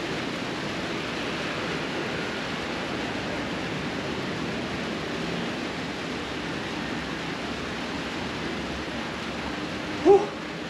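Steady rushing noise throughout. About ten seconds in, a man gives one short, loud vocal exclamation with a rising pitch.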